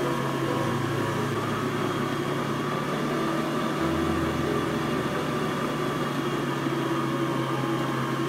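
Food processor motor running steadily, its kneading blade spinning through bread dough.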